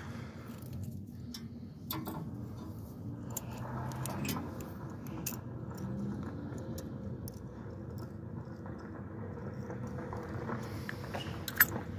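Light clicks and clinks of small metal carburetor parts (throttle slide, return spring and needle) being handled and fitted together, with one sharper click near the end, over a steady low hum.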